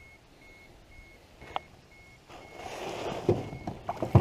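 Faint short electronic beeps, about two a second. From about halfway through, rustling and handling of a smallmouth bass on a plastic measuring board, with a few knocks on the riveted aluminium canoe floor near the end.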